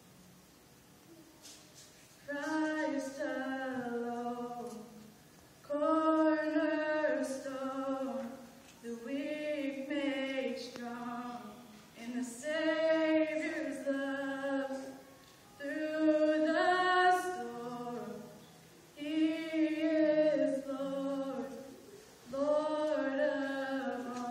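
A woman singing solo and unaccompanied into a microphone, in phrases of a few seconds with short breaths between them. She starts about two seconds in, after a quiet pause.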